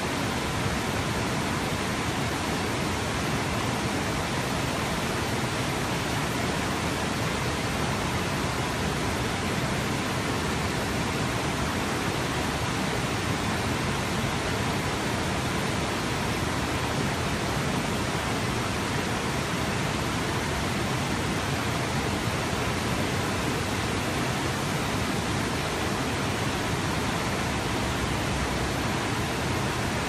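River water spilling over a low dam and churning through the whitewater below it, a steady unbroken rush.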